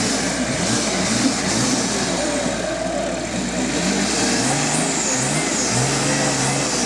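Off-road 4x4's engine revving as it crawls through a deep dirt hole, its pitch rising and falling in short surges as the throttle is worked.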